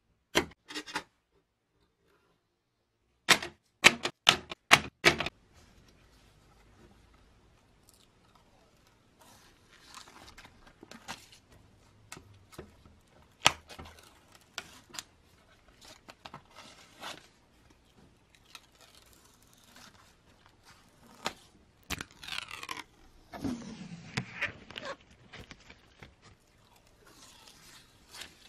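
A thin plastic sheet being handled: a quick run of sharp clicks about three seconds in, then rustling. Near the end its protective film is peeled off with a crackling tear.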